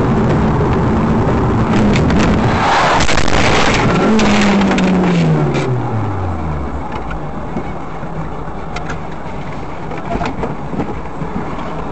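Car-cabin road and engine noise picked up by a dashcam microphone, loud and steady, with an engine note sliding down in pitch about four seconds in and a few sharp clicks.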